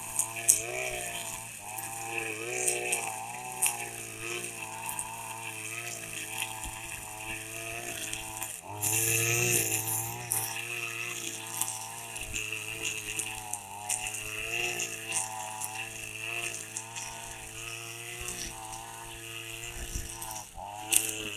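Petrol string trimmer running under load as it cuts tall grass, its engine pitch rising and falling continually with the throttle, with a louder burst of noise about nine seconds in.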